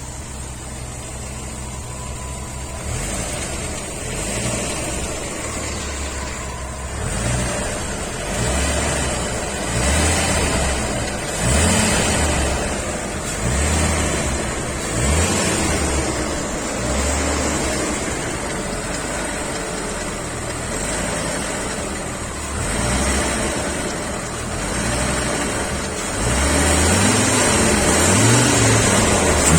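Volkswagen Passat's VR5 five-cylinder engine idling, then revved in short repeated blips from about three seconds in, its pitch rising and falling each time. The owner questions whether a noise from it is timing chain noise.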